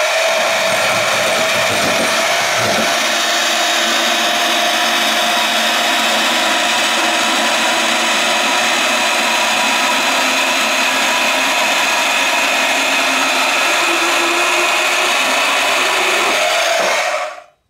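Chicago Electric 10-amp variable-speed portable band saw running on speed 3, its 14 TPI wood blade cutting through a 2x4 with a steady whine. The motor is switched off near the end and quickly spins down.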